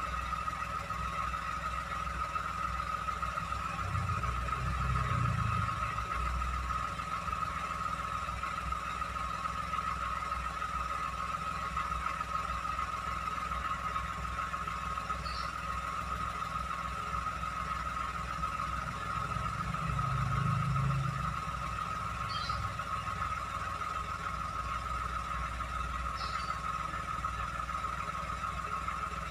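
Toyota Agya small car engine idling steadily, its note swelling briefly twice, about four seconds in and about twenty seconds in.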